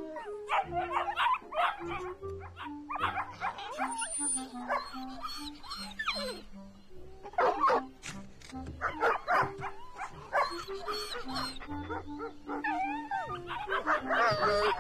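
A dog giving repeated short, excited barks and whines, over background score music with a slow stepping melody.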